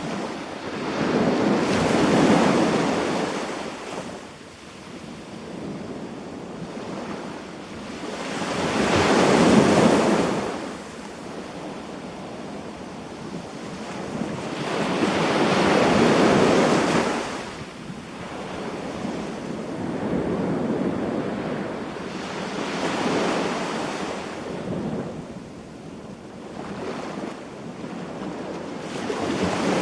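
Ocean waves breaking and washing onto a beach, swelling and fading in slow surges. The bigger breakers come about every six to seven seconds, with smaller washes between.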